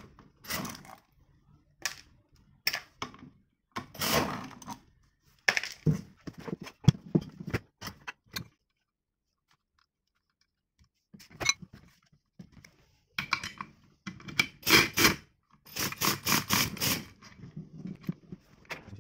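Metal parts of a spring balancer being handled and worked with hand tools: scattered clinks, knocks and scrapes, with a silent gap just past the middle, then runs of quick metallic clicks in the last few seconds.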